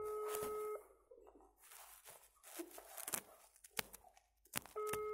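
Telephone ringback tone from a phone's loudspeaker: a steady beep about a second long, repeated about four seconds later, meaning the called number is ringing and has not been answered. Faint handling clicks fall between the beeps.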